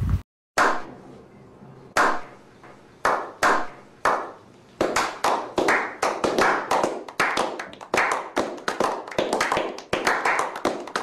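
A small group of people clapping slowly: single sharp claps about a second apart at first, then quicker and overlapping into steady applause from about five seconds in, each clap with a short echo.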